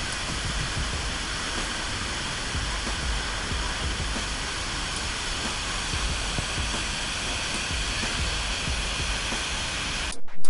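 Steady roar of the Iguazú Falls, a heavy even rush of falling water. It cuts off abruptly just before the end.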